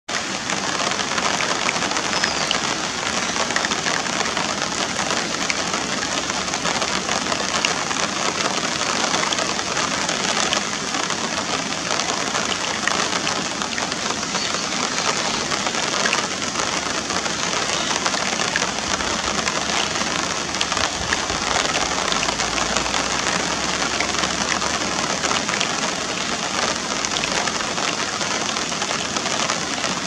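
Steady, even hiss of water: a swollen monsoon river rushing past close by, with no break. A low rumble runs underneath for several seconds past the middle.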